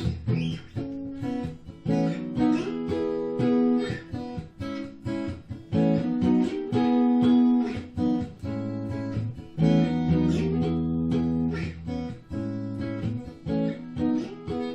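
Acoustic guitar strumming chords in a rhythmic instrumental passage of a song, without singing; the playing thins out near the end.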